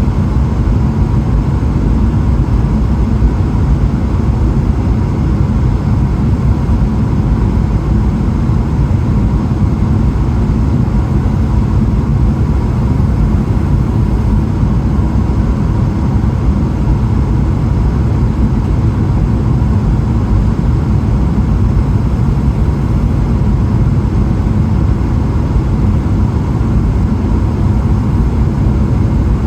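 Steady cabin rumble inside a Boeing 777-300ER: engine and airflow noise heard from the passenger seat, deep and unchanging, with a faint steady hum on top.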